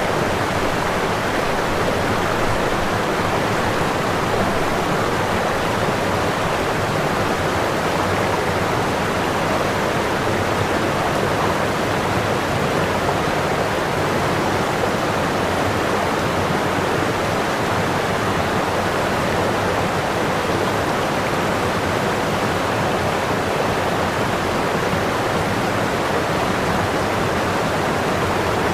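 A steady, unbroken rushing noise with no tone or rhythm, even in level, most of it in the middle range.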